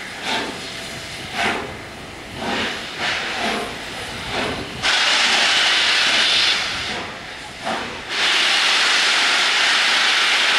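Steam locomotive 60163 Tornado, a Peppercorn A1 Pacific, blowing off steam: a few short, irregular puffs, then about halfway a sudden loud, steady hiss of escaping steam that eases off briefly and comes back for a second long blast.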